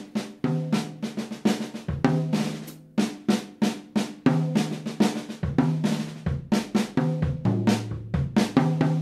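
Jazz drum kit played on its own, a drum solo: a quick run of snare strokes and rimshots, bass drum and cymbal hits, with low drum tones ringing under the strikes.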